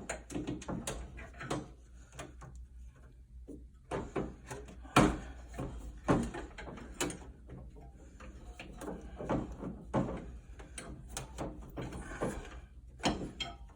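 Irregular knocks, clicks and scraping of a new blower motor being fitted back into the housing of an Amana PTAC heat pump, with the sharpest knock about five seconds in.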